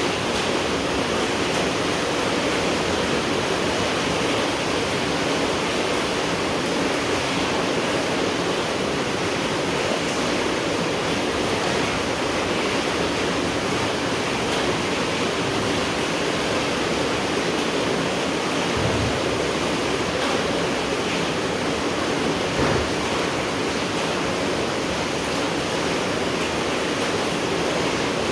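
Steady, dense rain falling at night, an even unbroken hiss of drops with no change in strength. Twice in the second half a brief low thud shows through it.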